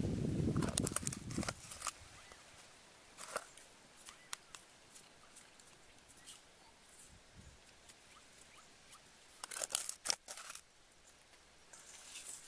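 Handling sounds of seasoning a raw chicken in a stainless steel bowl: a rustle in the first second or so, then scattered light clicks as seasoning is shaken from a small plastic container, and a short cluster of crisp clicks about ten seconds in.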